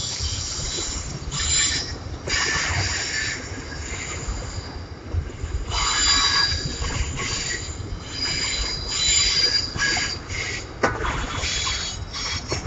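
Freight train rolling past, its wheels squealing on the rails in high-pitched bursts that come and go over a steady low rumble. A single sharp knock stands out near the end.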